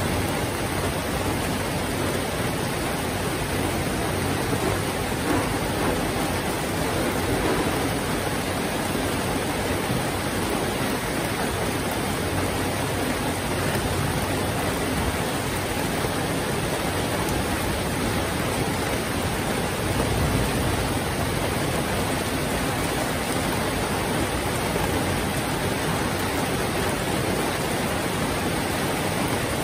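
Heavy rain falling in a steady, dense hiss, with a brief low rumble about two-thirds of the way through.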